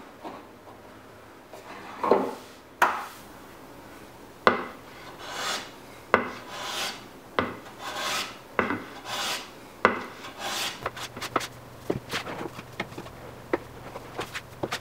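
A hand tool rasping across oak in repeated strokes, about one every half second to a second, several starting with a sharp knock; near the end the strokes give way to a faster run of light clicks.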